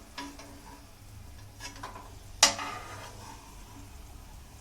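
A spoon scraping and clinking against a pan and a small bowl as fried cashews and peanuts are scooped out of hot ghee. The clinks are short and ring briefly, the loudest about two and a half seconds in, over a faint sizzle.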